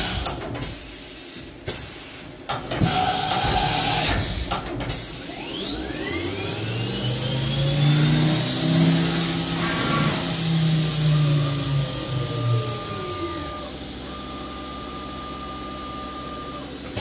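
Drive motor of a Smart SV-2 vertical machining center running up with a rising whine, holding at a high pitch for several seconds, then winding down to a lower steady tone that stops near the end. A few knocks and clicks come before it in the first seconds.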